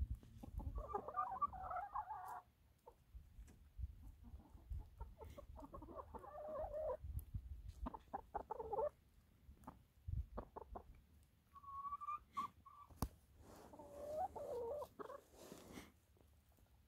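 A flock of 25-week-old brown pullets clucking in several separate spells of a second or two each, over a faint low rumble.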